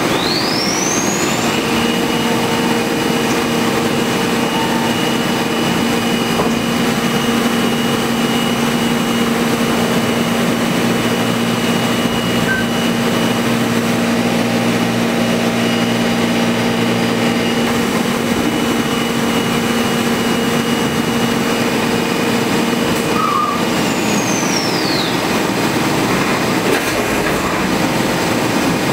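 Makino A51NX horizontal machining centre milling the slots of a Picatinny rail on a firearm receiver. The spindle spins up with a rising whine about a second in, then runs steadily through the cut over a constant hiss of flood coolant. It winds down with a falling whine about five seconds before the end.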